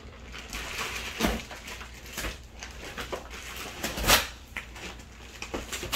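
Cardboard shipping box being torn open by hand along its tear strip: tearing and scraping of cardboard with scattered clicks, the loudest about four seconds in.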